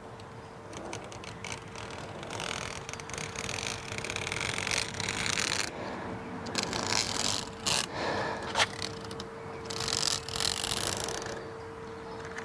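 Utility knife blade drawn along a screen door frame, cutting through excess screen mesh in scratchy, rasping passes, three longer strokes with a few sharp clicks between.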